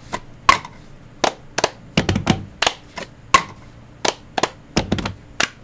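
Two people clapping their hands in a rehearsed rhythm, the claps coming about two to three a second and not quite together, with a few duller thumps of hands coming down on the lab bench.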